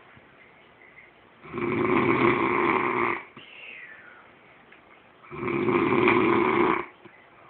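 A sleeping man snoring loudly, snoring like a horse: two long snores about four seconds apart, with quiet breathing between them. A faint falling whistle follows the first snore.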